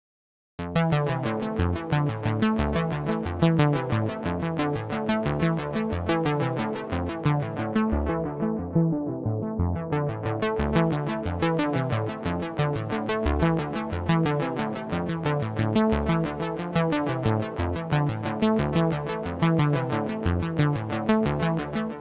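IK Multimedia Syntronik V-80 software synthesizer, a Yamaha CS-80 emulation, playing a fast arpeggio of short plucked sawtooth notes with chorus. The brightness drops away about eight seconds in and returns a couple of seconds later, and the notes stop with a short fading echo at the end.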